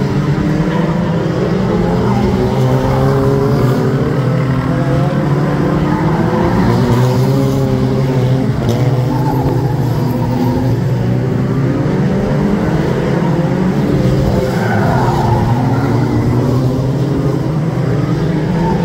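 BriSCA F2 stock cars racing round the bend of a short oval, several engines running hard together, rising and falling in pitch as the cars pass close by and accelerate out of the turn.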